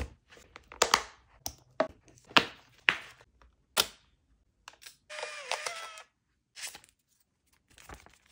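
Clicks and knocks as the Fujifilm Instax Mini 40 is handled in its leather case. About five seconds in comes a shutter click, then about a second of motor whirring as the camera ejects the instant print, its pitch dipping as it runs down.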